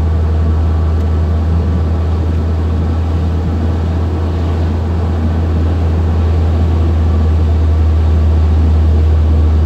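Steady driving noise inside a car's cabin on a wet road: a constant low drone of engine and tyres with an even hiss of tyres on the wet surface above it, growing a little louder near the end.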